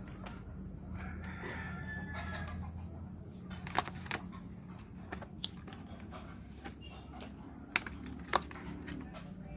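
A rooster crowing in the background, with a steady low hum. From about four seconds in come several sharp, separate clicks, the loudest near the end.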